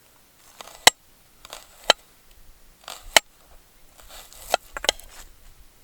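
Ka-Bar BK2 fixed-blade knife slicing through a vegetable, most likely onion. There are five sharp chops about a second apart, each a short scraping hiss as the blade cuts, ending in a knock as it hits the surface beneath.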